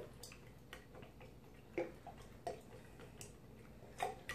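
Faint, irregular light clicks and taps of a spoon against a container while barbecue sauce is being mixed, roughly one every half second to second.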